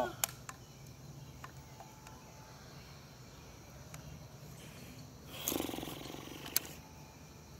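Crosman 760 Pumpmaster BB gun: a sharp crack just after the start, then about five and a half seconds in a rough rushing noise lasting about a second, ending in another sharp crack.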